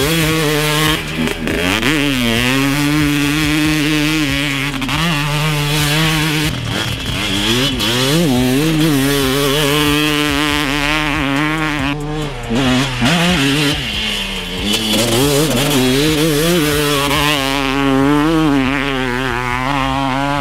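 2003 Kawasaki KX250 two-stroke dirt bike with a 270cc big-bore kit and Pro Circuit exhaust being ridden, its engine revving up and down through the turns.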